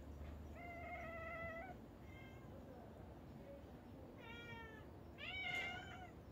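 Hungry cat meowing four times: a long meow, a short one, then two more, the last the loudest.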